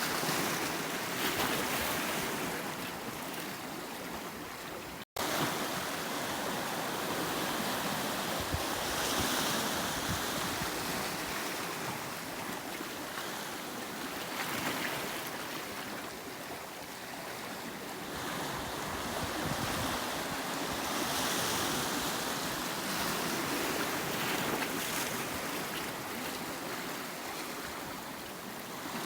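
Sea surf washing against a rocky volcanic shore: a continuous hiss of breaking water that swells and eases every few seconds. The sound drops out for a split second about five seconds in.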